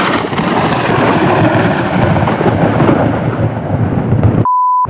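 Thunder from a cloud-to-ground lightning strike a few hundred metres away: a loud, continuous crash and rumble. About four and a half seconds in it cuts off abruptly and a short steady beep takes its place.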